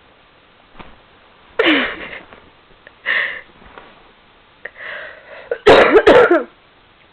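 Cats fighting: hissing and spitting with short screeches, in four bursts, the loudest near the end.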